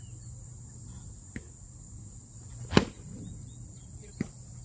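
Foam-padded sparring swords striking in a foam-fighting bout: three sharp hits about a second and a half apart, the middle one much the loudest. Under them runs a steady high drone of insects.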